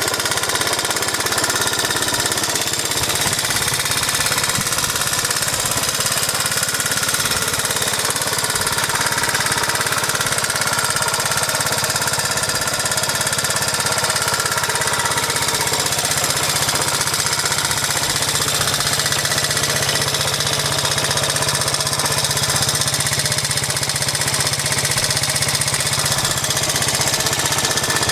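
Honda Z50J Monkey's small 49 cc four-stroke single-cylinder engine idling steadily with a rapid, even putter. It is running well, freshly repaired in the exhaust and carburettor.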